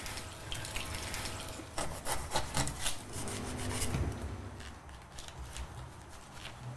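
Kitchen knife cutting fruit on a board: a run of short slicing and scraping strokes, thickest about two to three seconds in, then quieter.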